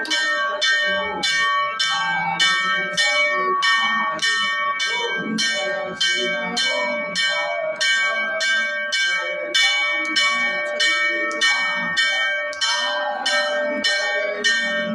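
A temple bell rung steadily by hand during aarti, about two strikes a second, each strike ringing on into the next.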